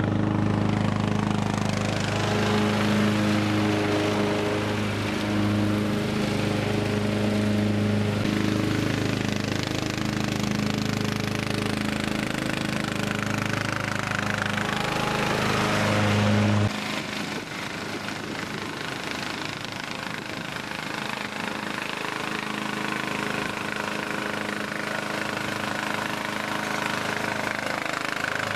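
Partner P145107H lawn tractor with bagger running steadily while mowing, with a strong low engine note and mechanical clatter. A little past halfway the deep engine note cuts out suddenly, and the sound goes on quieter and thinner.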